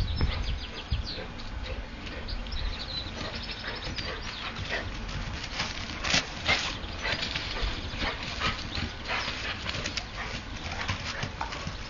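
A Labrador and a greyhound play-fighting: short scuffling sounds in a rapid, irregular run.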